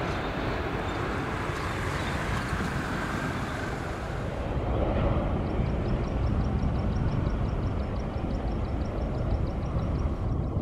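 Boeing 777-300ER's GE90 turbofan engines on final approach: a steady, low jet rumble. About four and a half seconds in, a faint high ticking begins, about five a second.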